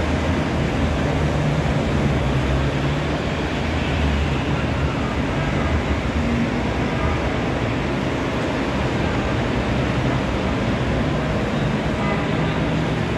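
Engines of vintage GAZ cars running, a steady low-pitched sound with no pauses.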